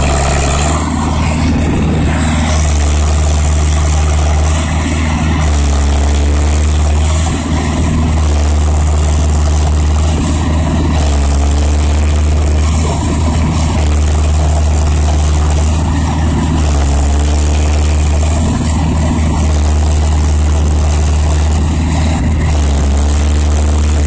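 Zetor 7011 tractor's four-cylinder diesel engine running steadily under load as it pulls a harrow across a field.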